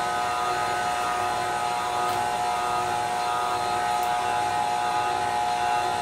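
KitchenAid stand mixer running steadily, its motor giving a constant whine as it beats pound cake batter.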